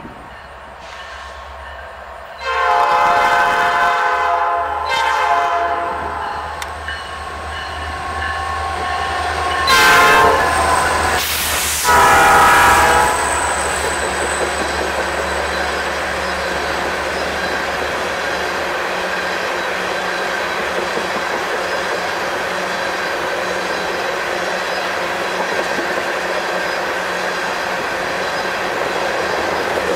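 Diesel locomotive multi-chime horn sounding four blasts, the first and last long, then the train passing with a steady rumble of wheels on rail and clickety-clack.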